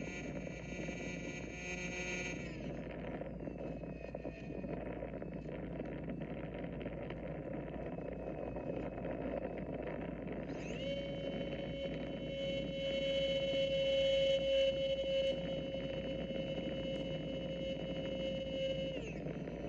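R/C plane's motor and propeller, recorded onboard with rushing air over the microphone. The steady whine drops in pitch about two and a half seconds in as the throttle comes back, rises again around eleven seconds in and holds high, then falls away near the end.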